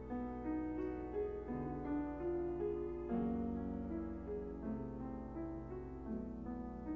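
Background music: a piano melody of held notes over a steady low tone.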